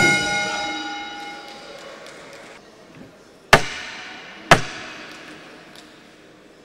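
Boxing ring bell struck to end the round, its metallic ring dying away over about two seconds, then two more sharp strikes about a second apart, a little past halfway.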